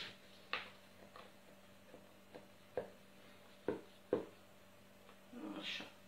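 Small knife cutting down through layered phyllo pastry in a metal baking pan: about eight sharp, irregular ticks and crackles as the blade goes through the sheets, the loudest two a little past halfway.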